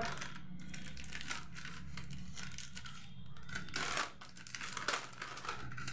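A foil snack packet crinkling as it is handled and cut open across the top with scissors: scattered short crackles and snips, a cluster of them a little before the end.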